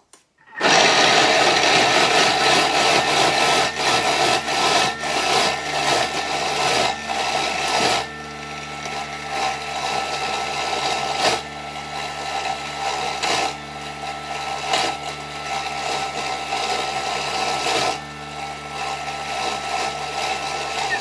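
Thermomix blending pesto ingredients (cashew nuts, garlic, baby spinach, olive oil and salt) at speed 7. It starts about half a second in, loud and rough as the blades chop the nuts. About eight seconds in it drops to a quieter, steadier whir, and it stops near the end.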